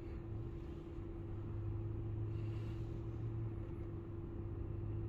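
Vehicle engine idling, a steady low hum with a faint higher drone.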